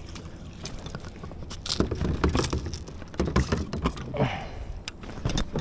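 Irregular knocking, thumping and rattling of fishing gear and hands against a fishing kayak while a bass is being landed, in several clusters from about two seconds in.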